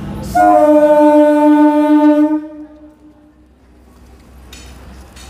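Train horn sounding one loud, steady blast of about two seconds, then dying away.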